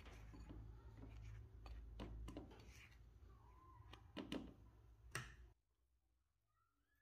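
Faint food-preparation handling sounds: scattered light taps and clicks over a low hum, which cut off suddenly about five and a half seconds in.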